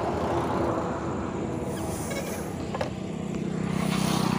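A motor vehicle's engine running nearby, over a steady outdoor rumble; its low hum grows louder from about three seconds in.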